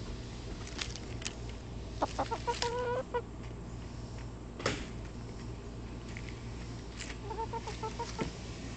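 Hens clucking softly: a short run of warbling clucks about two seconds in and another near the end, with a few sharp clicks between them over a low steady hum.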